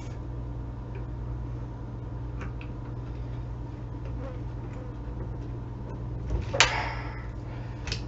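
PEX crimping tool being squeezed onto a crimp ring on 3/4 inch PEX tubing: a few faint clicks and one sharper click about six and a half seconds in, over a steady low hum.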